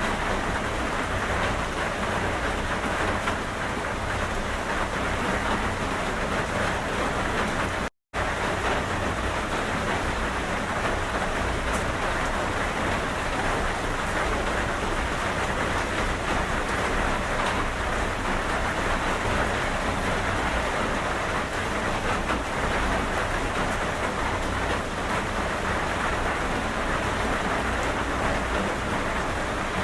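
Steady heavy rain: a dense, even hiss of falling water that cuts out to silence for an instant about eight seconds in.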